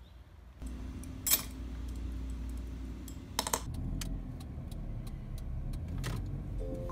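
Inside a moving car: a steady low engine and road hum, with a few short clicks and rattles over it.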